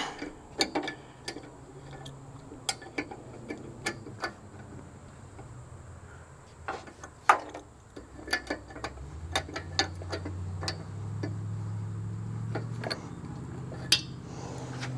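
Irregular sharp metallic clicks and taps of hand tools on fittings. A low steady hum comes in about nine seconds in and grows louder.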